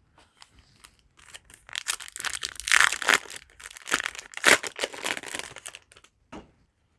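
Foil booster pack wrapper crinkling and tearing open as a trading card pack is unsealed, a dense run of crackles for a few seconds, then cards being handled.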